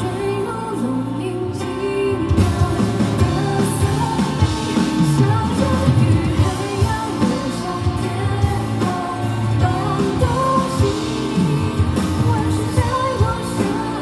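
Music: a live pop song, a woman singing over a band accompaniment.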